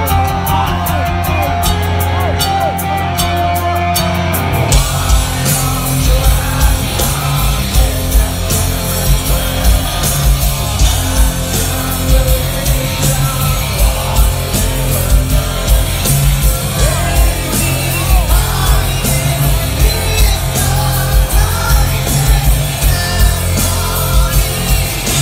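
Live rock band at concert volume, heard from the crowd: electric guitar and drums. About five seconds in, the full band hits harder, with heavy kick-drum beats and singing and shouted vocals.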